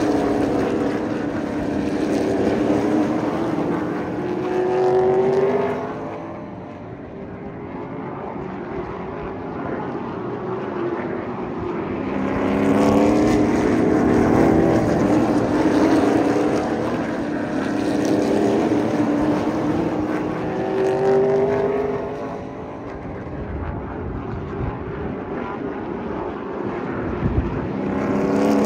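Pro late model stock cars' V8 engines racing past on a short oval, their pitch rising and falling as they lift into the turns and accelerate out. The sound swells as the pack comes by and fades in between, twice.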